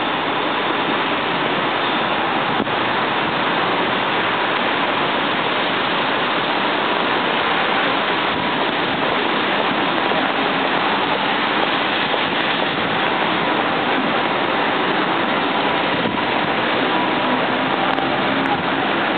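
Steady hiss of rain falling and car tyres swishing on wet asphalt, one continuous wash of noise with no distinct events.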